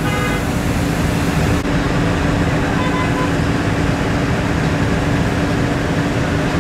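Truck-mounted crane at work: the truck engine runs steadily under a steady hum while the hook is let down.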